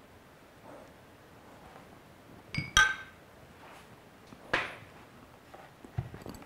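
Metal teaspoon clinking against a bowl and a blender jar as honey is spooned in. One sharp, ringing clink comes near the middle, a duller knock follows about a second and a half later, and a few light taps come near the end.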